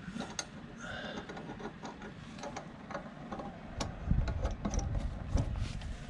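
Small metal clicks and clinks as a leaf spring's fish plate and U-bolt hardware are handled and fitted by hand. Duller low knocks and rustling join in from about four seconds in.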